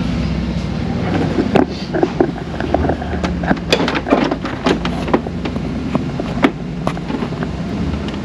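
Irregular sharp clicks and knocks of a plastic front grille being handled and pressed into its clips on a car's front end, over a steady low hum.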